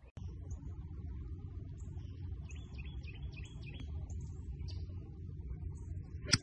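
Outdoor range ambience, a steady low rumble with birds chirping, then near the end the single sharp crack of a golf club striking a ball.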